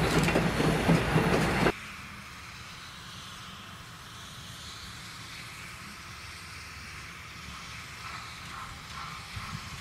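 Passenger cars rolling past close by, their wheels clacking over the rail joints, cut off abruptly about two seconds in. Then a much fainter, steady sound of the distant Baldwin 4-8-0 steam locomotive working its train.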